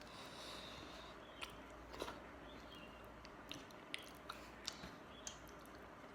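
Faint close-up chewing of soft food, with about eight small sharp wet clicks and smacks scattered through it, the loudest about two seconds in.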